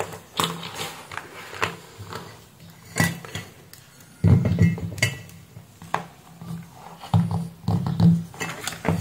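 Clicks, knocks and rubbing from cable connectors and a CCTV camera's housing being handled on a workbench as power and video leads are plugged in: a series of separate sharp clicks, with two stretches of denser handling noise.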